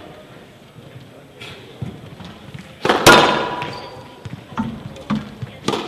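Squash ball smacks: racket strikes and the ball hitting the walls of a glass court, each sharp crack ringing on in the hall's echo. The loudest comes about three seconds in, with a few lighter knocks around it and another loud one right at the end.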